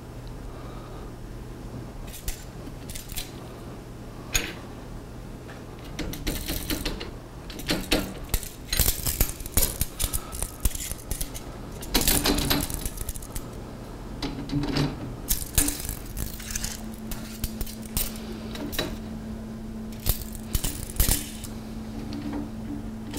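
Metal rack brackets being slid and adjusted along the rails: irregular light metallic clinks, taps and scrapes, sparse at first and busier from about six seconds in, over a steady low hum.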